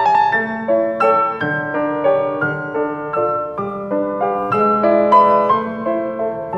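Piano music: a steady run of notes, about four a second, over held low notes.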